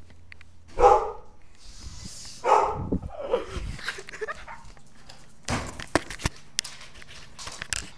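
A dog barking, a few short barks in the first few seconds, the first about a second in being the loudest. Several sharp knocks follow near the end.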